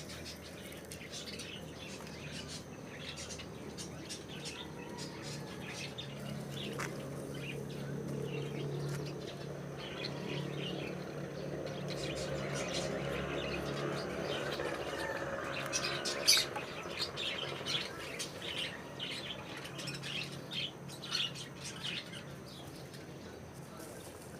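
Birds chirping, with many short high calls throughout. A low hum swells through the middle and then fades.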